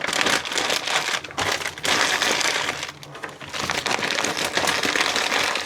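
Rough crumpling and crinkling handling noise, dense with small crackles, in three stretches broken by short pauses.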